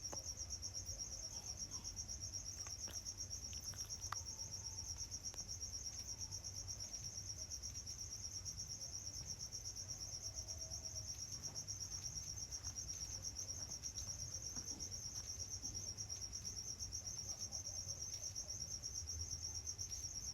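Crickets chirping steadily in a fast, even pulse, with a few faint clicks of metal parts being handled.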